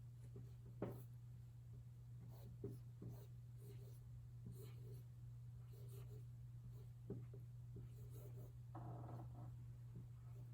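Faint writing sounds: scattered short strokes and ticks of a pen or marker being written with, over a steady low hum, with a slightly longer scratch about nine seconds in.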